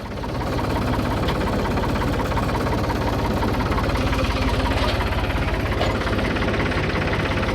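Engine of the vehicle dragging an old truck, running under load with a fast, even low pulse; it grows louder over the first second, then holds steady.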